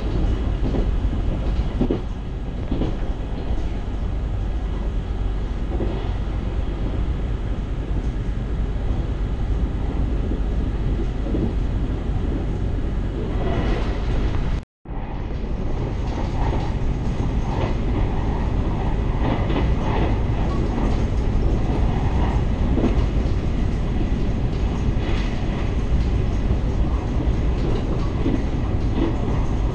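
Passenger train running along the track, heard from inside the carriage as a steady rumble of wheels on rail with faint clicks. The sound cuts out completely for a moment about halfway.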